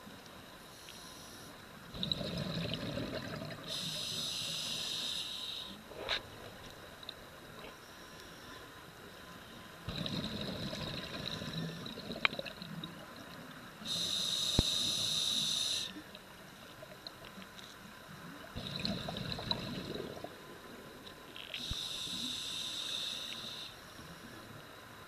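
Scuba regulator breathing underwater: three breath cycles about eight seconds apart, each a bubbling rush followed by a hiss, with a few sharp ticks in between.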